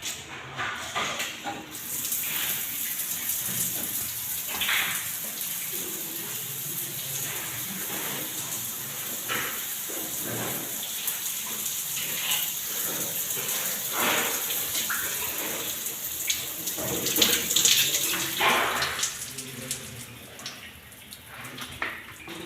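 Water running from a newly plumbed bathroom fixture: a steady hiss that starts about two seconds in and eases off near the end.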